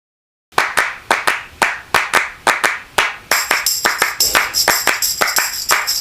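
A music track's intro built on rhythmic handclaps, about three a second, starting half a second in. About three seconds in, a high shimmering layer joins the claps.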